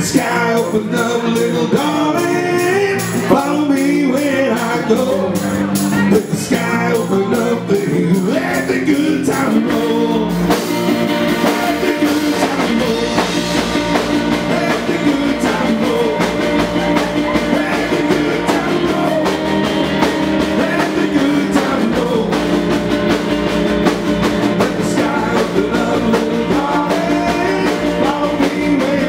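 Live rock and roll band playing: upright double bass, electric guitar and drum kit, with a man singing over them for the first ten seconds or so before the instruments carry on alone.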